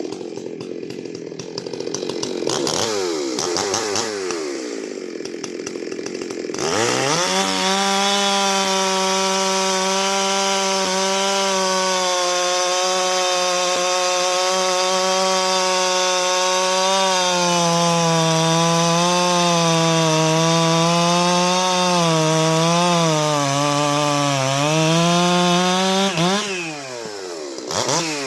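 Stihl 91 cc two-stroke chainsaw engine blipped a few times at low speed, then revved up about six seconds in and held at high revs for some twenty seconds. In the second half the pitch sags and wavers before it drops back to idle, with one last quick blip near the end.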